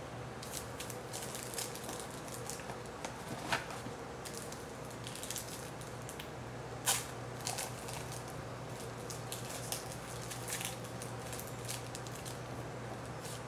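Trading cards being handled and flipped through: a run of small sharp clicks and rustles of card stock, over a steady low electrical hum.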